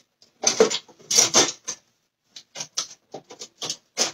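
Kitchen utensils clattering in an open drawer as a hand rummages through it: two louder rattles, then a string of short clicks.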